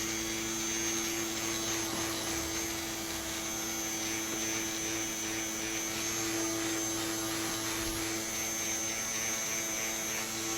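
Small electric fan running steadily with a constant hum, blowing on freshly shrunk heat-shrink tubing to cool it faster.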